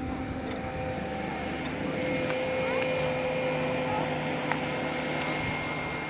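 Steady open-air noise on a frozen-lake skating area, with a faint steady machine hum and distant skaters' voices now and then.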